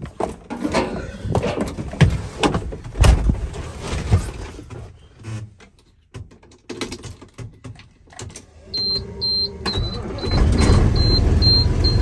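Clunks and handling noise inside a truck cab, then a high-pitched warning beeper starts about nine seconds in, beeping about twice a second, and the truck's engine starts up and keeps running under it near the end.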